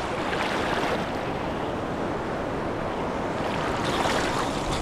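Steady rushing of a mountain river's flowing water, close around the microphone.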